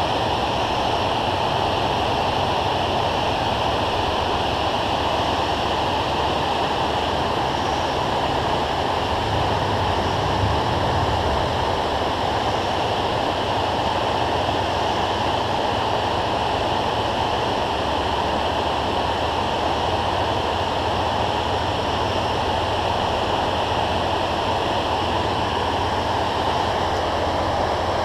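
Steady, loud rush of water pouring over a low dam spillway into the river below.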